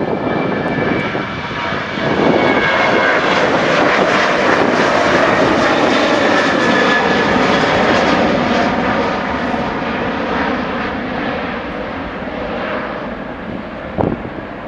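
A Boeing 737-700's CFM56-7 turbofan engines at takeoff thrust as the jet goes past. The noise swells about two seconds in, holds loud for several seconds, then slowly fades, with a high whine falling in pitch at first.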